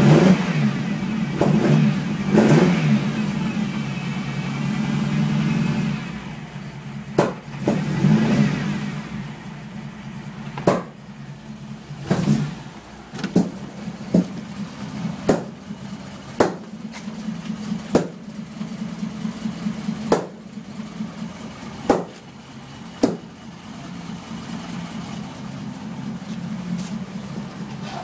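Ferrari Mondial V8 rough idle, revved up a couple of times early on. Through the middle it gives a string of sharp backfire pops every second or two. It then settles into an uneven idle near the end.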